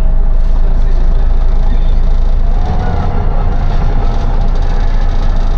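City bus running, heard from inside: a heavy engine and road rumble, with a steady drone that grows stronger about halfway through.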